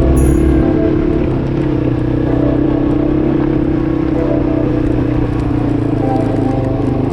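ATV engine running at a steady speed. Music with chime-like notes and heavy bass fades out about half a second in.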